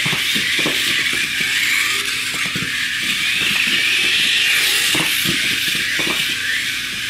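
Micro 1/24-scale Losi RC truggy's electric motor and gears whining high, swelling and easing with the throttle, with scattered light knocks.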